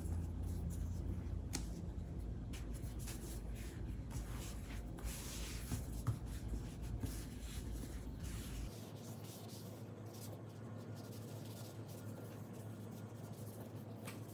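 Hands kneading and rolling tapioca-flour dough into a rope on a floured countertop: soft rubbing and scattered light taps over a steady low hum.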